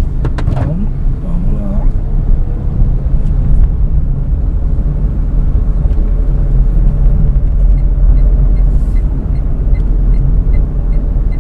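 Steady low rumble of a car's engine and tyres, heard from inside the cabin while driving along a town street.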